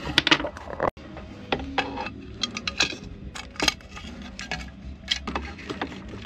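Irregular small metallic clicks and clinks from hand tools and small hardware being handled during the installation work.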